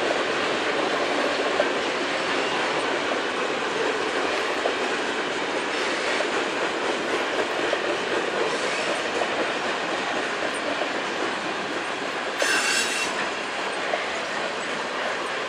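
Covered grain hopper cars of a long freight train rolling past: a steady rumble of steel wheels on the rail with light clicking at the rail joints. A brief high-pitched wheel squeal sounds about twelve seconds in.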